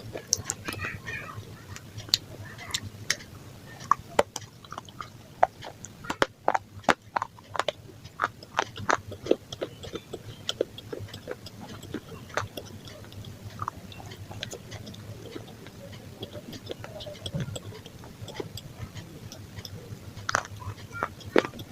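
Close-miked chewing of pizza: irregular crunches and mouth clicks, a few a second.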